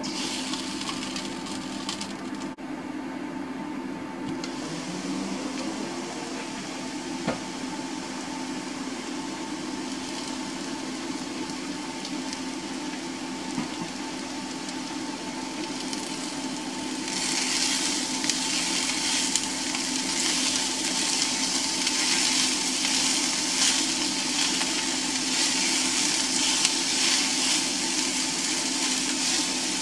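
Mushrooms sizzling in a frying pan over a steady hum. A bit over halfway through, once chopped onion is in the pan, the sizzling grows much louder and brighter and stays that way.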